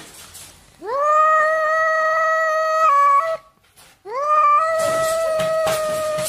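Domestic cat giving two long yowls, each sliding up at the start and then held at a steady pitch for about two seconds, with a short pause between them.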